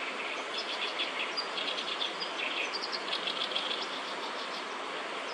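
Oriental reed warbler singing a run of rapid, chattering repeated notes from about half a second in until nearly four seconds, over a steady background hiss.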